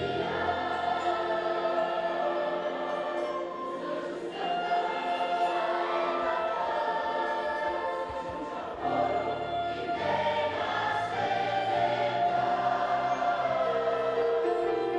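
A mixed choir of children and adults singing a Christmas cantata in long held chords that change every few seconds, accompanied by a wind band and piano.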